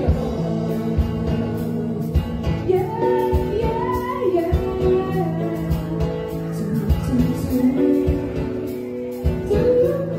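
Small mixed vocal group singing together in several parts over acoustic guitar accompaniment.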